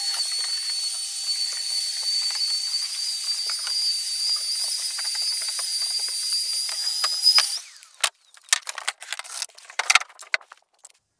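Canister vacuum cleaner running steadily on bare flooring, a high whine over a hiss, with scattered small clicks; its whine rises slightly before it is switched off and cuts out about seven and a half seconds in. A few knocks and clatters follow as the vacuum is handled.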